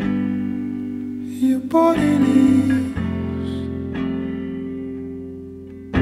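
Background music: a slow, gentle song with guitar, its sustained chords changing every second or so.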